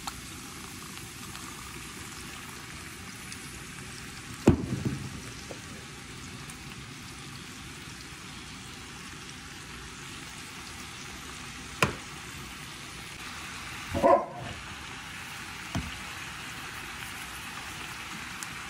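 Sliced yellow squash and green beans sizzling steadily in a nonstick pan, with a few sharp knocks and clicks as seasoning and sauce go in. The loudest knock comes about four and a half seconds in, with a short burst near fourteen seconds.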